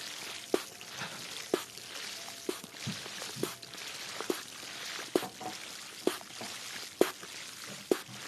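Water pouring or trickling, with a sharp drip-like plop about once a second, nine in all, as an ASMR water trigger.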